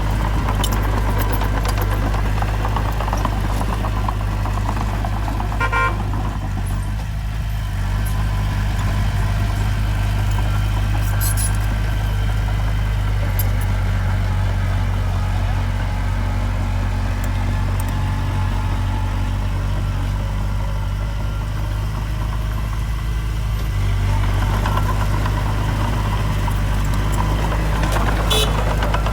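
Heavy diesel engine of earthmoving machinery running steadily with a deep hum, its pitch shifting slightly a couple of times. A few short clanks are heard along the way.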